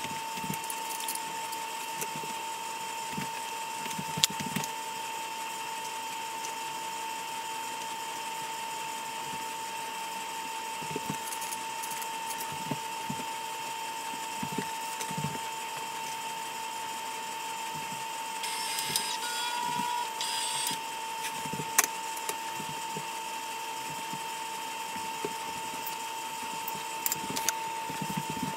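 Steady high hum throughout, with scattered light clicks and taps as small glass tile pieces and tools are handled during tile setting. A short noisy rasp lasts about two seconds, roughly two-thirds of the way through.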